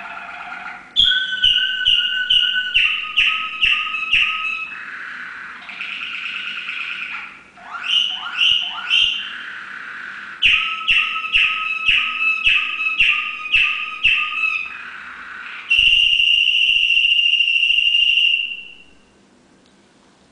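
Domestic canary singing a long, varied song: runs of quick repeated whistled notes at about four or five a second, rolling trills, and a long steady high trill of nearly three seconds that stops shortly before the end.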